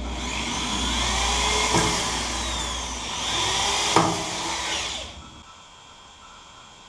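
Handheld electric drill boring a hole through a metal frame, its motor pitch sagging and recovering under load, with a couple of sharp knocks from the bit. It stops about five seconds in.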